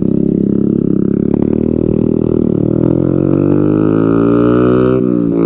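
Bajaj Pulsar 150's single-cylinder engine running loud and deep through an aftermarket SC Project exhaust as the bike is ridden. Its pitch dips slightly about halfway, then climbs steadily.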